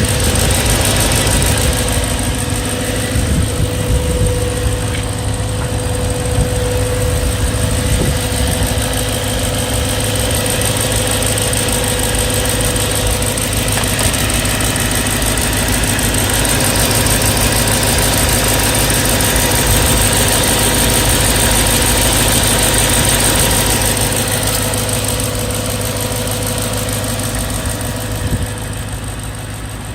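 BMW E92 M3's S65 4.0-litre V8 idling steadily with a fast, light ticking running through it. It is an engine fault noise that the owner says developed cold and is quieter, but still present, once warm.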